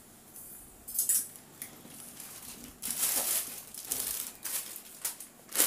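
Clothes on wire hangers being handled at a metal rack: several short bursts of fabric rustling, with light metallic clinks of the hangers.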